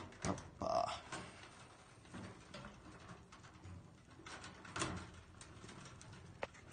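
A plastic twist-on wire nut being screwed by hand onto electrical wires: quiet rustling and scraping of the wires with a few small clicks, one sharper click near the end.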